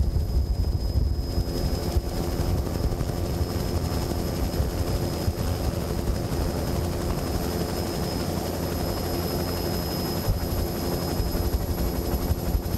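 Helicopter running steadily in flight, heard from aboard: a heavy rapid rotor flutter under the engine's hum, with a steady high turbine whine.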